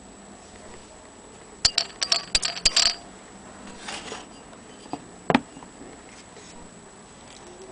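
Willcox & Gibbs hand-crank sewing machine being handled and cranked: a quick run of sharp metallic clicks and clinks lasting about a second, then a few single clicks.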